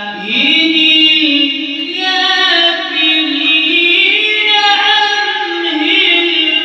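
A male reciter chanting the Quran in the drawn-out melodic style, a single voice holding long ornamented notes. The pitch glides up about a third of a second in, then wavers slowly on sustained tones.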